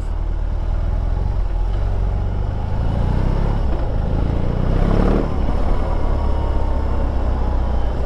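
BMW R18's big 1.8-litre boxer twin running at low speed in slow traffic, a deep steady rumble of rapid firing pulses. The sound swells briefly about five seconds in.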